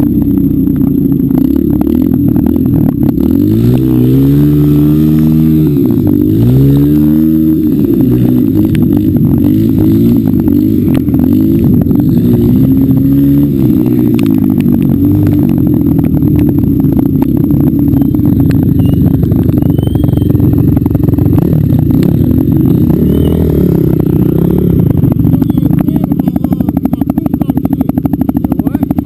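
Quad (ATV) engine running close up while riding, its revs rising and falling again and again, climbing and dropping twice in quick succession a few seconds in. Knocks and rattling run through it.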